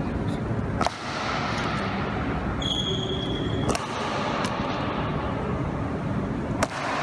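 Honor guard's boots striking the marble floor in a slow ceremonial march: sharp, echoing cracks about every three seconds, three loud ones and a few fainter.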